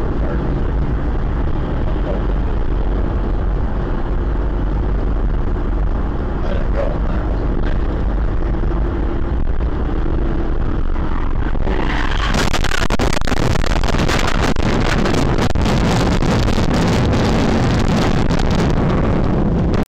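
Car travelling at highway speed: steady road and wind rumble picked up by a dashcam inside the car. From about twelve seconds in, a long run of rapid clattering and scraping lasts until just before the end.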